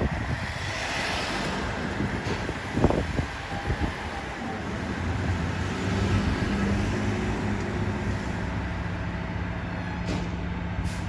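2007 American LaFrance pumper's diesel engine idling, a steady low drone that settles in about halfway through. A hiss comes about a second in and a single knock about three seconds in.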